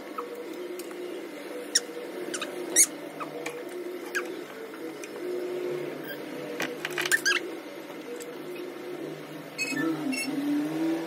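Spoons clinking against plates during a meal: a few scattered light clinks, then a brief cluster of them about two-thirds of the way through, over a steady low hum in the room.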